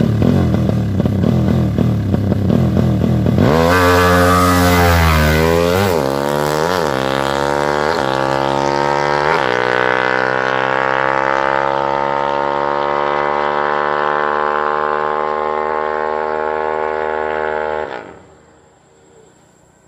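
Race-tuned motorcycle engine idling, then revved up hard with a run of quick throttle blips, held at high revs with the pitch creeping upward, and cutting out suddenly near the end.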